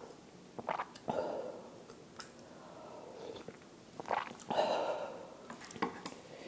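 Close-miked slurping of ramyeon broth and noodles from a spoon, twice, about a second in and about four seconds in, with small wet mouth clicks and chewing in between.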